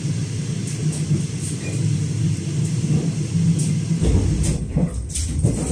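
Passenger train running, heard from inside the carriage: a steady low rumble. About four seconds in, a deeper rumble joins it, with scattered short clatters of the wheels on the track.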